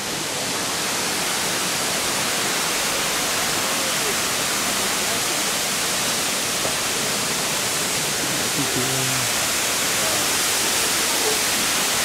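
Steady rush of a large waterfall, Kintampo Falls, heard from near its base, with faint voices of people nearby now and then.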